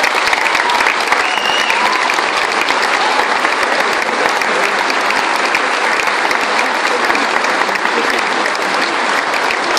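A large audience applauding steadily, many hands clapping at once, with a few voices among the clapping.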